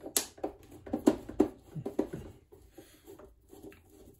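A run of short clicks and taps, several a second, louder in the first half and fainter later: a screwdriver and screws knocking against the plastic housing of a Brother sewing machine while screws are taken out.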